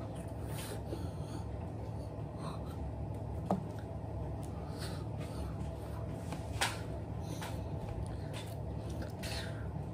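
Steady low room hum, with soft breath and mouth noises from a person signing without speaking, and two short clicks, one about three and a half seconds in and a sharper one near the middle.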